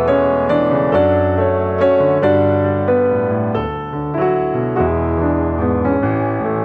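Background music: a slow piano piece, its melody notes changing about twice a second over held bass notes.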